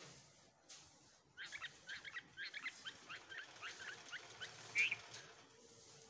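Bulbul nestlings begging as an adult feeds them at the nest: a quick run of short, high chirps that starts about a second and a half in and stops just after five seconds, loudest near the end.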